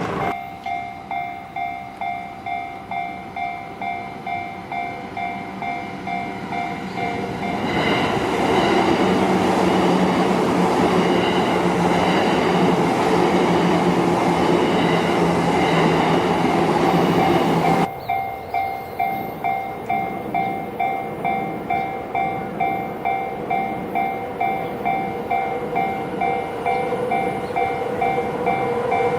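Japanese railway level-crossing warning alarm ringing in a steady, rapid rhythm while a train runs past loudly for about ten seconds in the middle, drowning out the alarm's lower tone; afterwards the alarm rings on, and near the end the sound of another approaching train rises.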